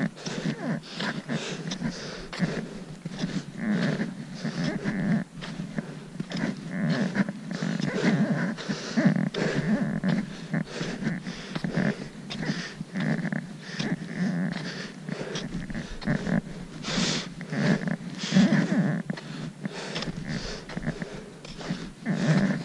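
Footsteps crunching in packed snow in a steady walking rhythm, with trekking poles planting, and the hiker's breathing close to the microphone.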